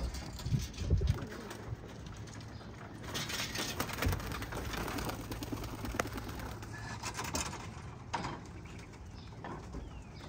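Young racing pigeons cooing in and around their coop, with a few low thumps about a second in and a couple of sharp clicks.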